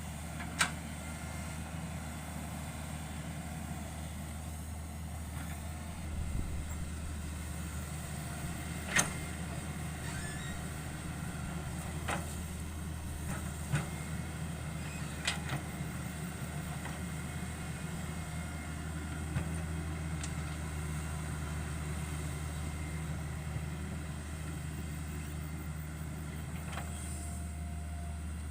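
Hitachi 110 hydraulic excavator's diesel engine running with a steady low drone, with a few sharp knocks scattered through it, the loudest about nine seconds in.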